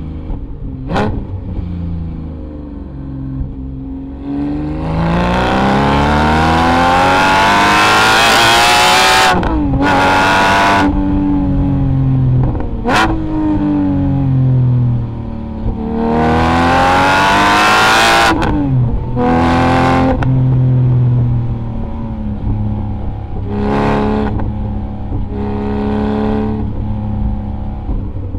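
Porsche 718 GT4's naturally aspirated 4.0-litre flat-six through a Kline Innovation Inconel full exhaust with 200-cell catalytic converters, under way. It makes two hard pulls that climb in pitch, each cut off sharply by an upshift, then eases off with falling revs. Short throttle bursts come near the end, and a few sharp cracks sound along the way.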